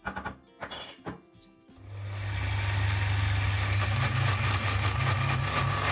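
A few knocks, then an electric blender starts about two seconds in and runs steadily. It is grinding soaked rice and lentils into a thick vada batter without added water.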